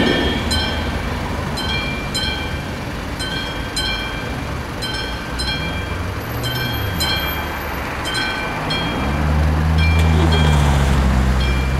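Level-crossing warning bell ringing in a steady repeating two-tone ding, a little under two strikes a second, over the low rumble of the tail of a passenger train passing over the crossing. About nine seconds in, a low steady motor hum joins as the crossing barrier rises.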